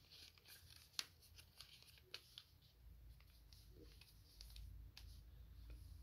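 Faint rustling and crinkling of a square of origami paper being folded along its diagonal and creased down by hand, with a few soft ticks, the sharpest about a second in.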